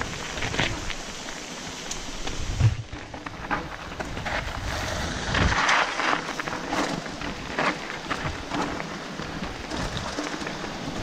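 Mountain bike tyres rolling over loose gravel and stones on a descent, with steady wind noise on the microphone and many short knocks and rattles from the bike over bumps. Heavier low thumps come about three seconds in and again about halfway.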